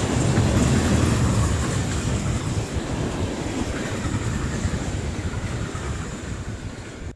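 A train rolling past: a steady rumble of wheels on rails that slowly fades, then breaks off abruptly at the end.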